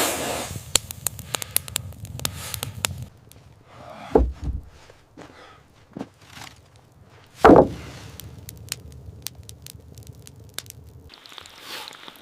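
Wood fire crackling with sharp pops, busiest in the first three seconds, with two heavy thuds about four and seven and a half seconds in.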